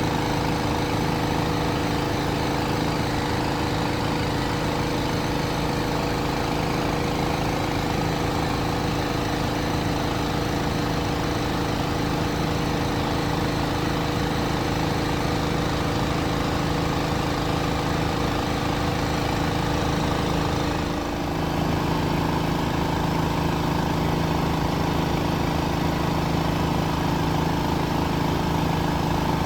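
Miele Professional laundry machine running steadily with an even motor hum. It dips briefly about two-thirds of the way through, then carries on with a slightly changed pitch.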